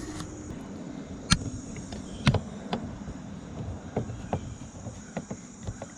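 Scattered sharp clicks and taps from handling and fitting a car's interior door panel, with two louder knocks about a second and two seconds in, over a steady high tone in the background.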